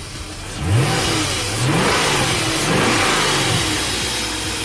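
BMW E39's 4.4-litre V8 engine revving, its engine speed rising and falling about four times, starting louder a little under a second in.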